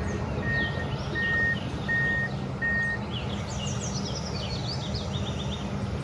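Komatsu PC210 hydraulic excavator's diesel engine running steadily, with a warning alarm beeping about once every three-quarters of a second until about three seconds in, then stopping. Short high chirps sound throughout.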